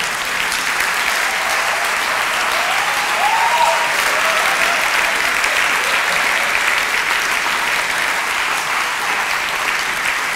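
A theatre audience applauding steadily and at length after a joke, a dense crowd of many hands clapping.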